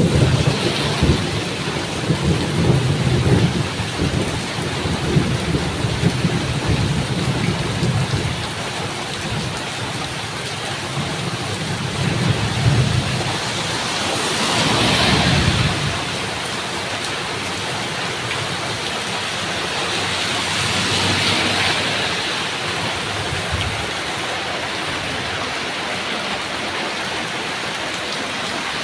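Steady rain with thunder rumbling low and rolling through the first half, dying away about halfway through. The rain then goes on evenly, swelling up twice in the middle.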